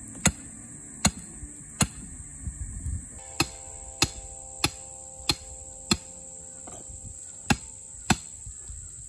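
Sledgehammer blows driving a thin metal stake into the ground: about ten sharp strikes, mostly 0.6 to 0.8 s apart, with two short pauses. A steady high buzz of insects runs underneath.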